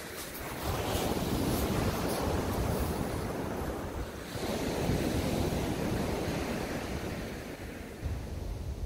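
Sea surf breaking and washing up the beach in two long surges, one after the other, with wind buffeting the microphone.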